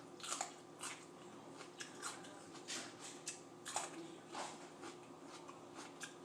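Someone chewing crisp, juicy mini sweet peppers close to the microphone: a run of faint, irregular wet crunches and smacks.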